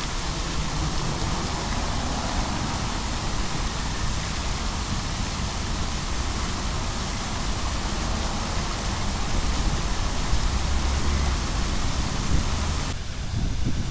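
The Fontaine des Mers, a large tiered ornamental fountain, with its many jets splashing into the basin: a steady rush of falling water.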